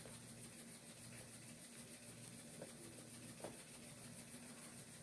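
Near silence: faint chewing over low room hiss, with a couple of soft mouth clicks about two and a half and three and a half seconds in.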